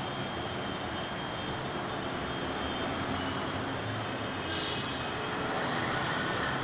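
Automatic sliding gate in motion: its electric operator motor running and the steel gate rolling along its track, a steady mechanical hum and rumble.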